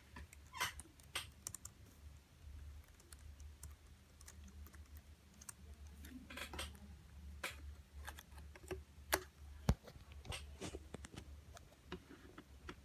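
Typing on a Dell laptop keyboard: irregular key clicks at uneven intervals, a few louder than the rest, over a faint low steady hum.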